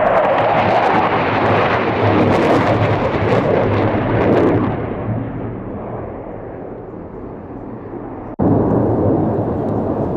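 Panavia Tornado GR4 jet, with its twin RB199 turbofans, roaring past low. The roar is loudest for the first four or five seconds, then fades away. About eight seconds in, a sudden cut brings the loud jet roar straight back.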